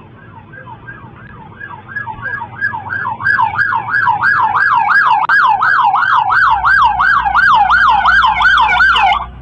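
Police siren in rapid yelp mode, its pitch sweeping up and down about three times a second. It grows louder from about three seconds in as the vehicle closes in, then cuts off suddenly near the end.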